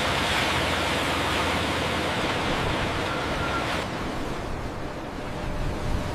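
Surf rushing on a beach, a steady noisy wash of breaking water that eases off about four seconds in.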